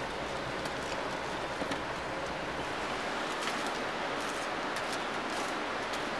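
Steady rushing outdoor background noise with faint, scattered crackles and ticks from a bed of campfire coals.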